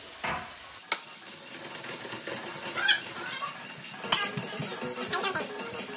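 Meatballs in tomato sauce sizzling in a skillet while a wooden spoon stirs and scrapes in the pan, with a couple of sharp knocks against the pan, about a second in and about four seconds in.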